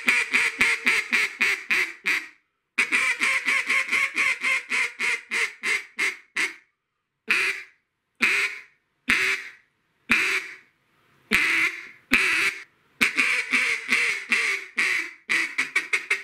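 Echo single-reed, Arkansas-style duck call blown as hen mallard quacks by a caller still learning the switch from a double reed. It starts with two runs of quick, evenly spaced quacks, then a string of separate single quacks about a second apart, then a faster string of short quacks near the end.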